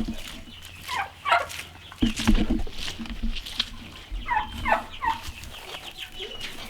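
Farmyard poultry calling, with turkeys gobbling among them: a string of short, falling calls at irregular intervals.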